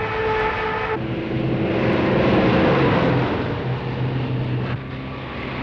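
Truck with a drawbar trailer driving by: engine and tyre noise swell to a peak about two and a half seconds in and then ease off. The sound changes abruptly about a second in and again near the end.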